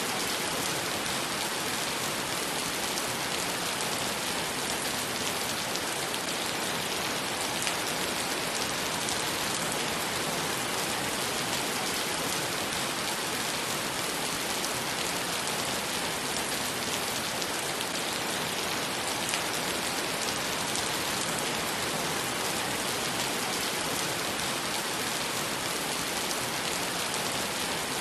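Heavy rain falling on wet pavement and puddles: a dense, steady patter of drops splashing.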